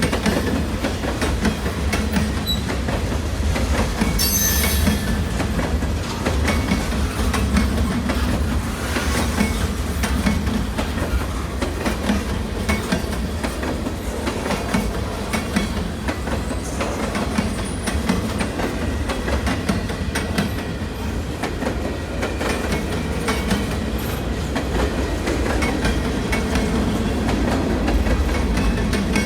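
A train rolling past, its wheels clicking over rail joints above a steady rumble, with a brief high wheel squeal about four seconds in.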